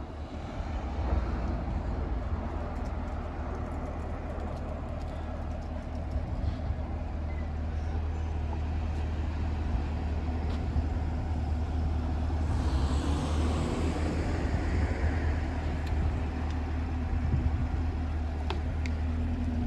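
Chevrolet Camaro's engine and exhaust running with a steady low rumble as the car rolls slowly, getting gradually louder. A short hiss passes about two-thirds of the way through.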